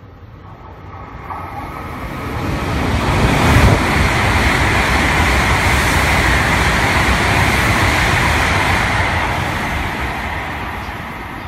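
Hokuriku Shinkansen E7/W7-series high-speed train running through the station at speed without stopping: a rushing roar that builds over the first few seconds, gives a low thump about three and a half seconds in, stays loud for several seconds as the carriages pass, then fades near the end.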